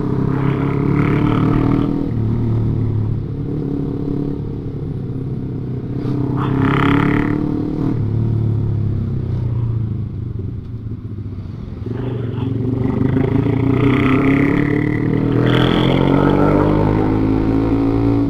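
Motorcycle engine running while riding in traffic, its pitch rising and falling with the throttle and climbing as it speeds up over the last few seconds.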